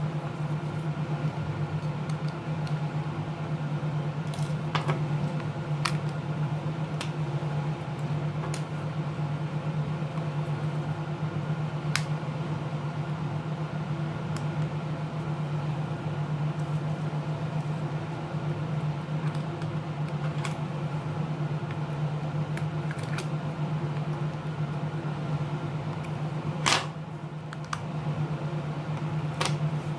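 Steady low electrical hum with scattered sharp clicks and taps of small tools and parts being handled during a tablet teardown; one click near the end is louder than the rest.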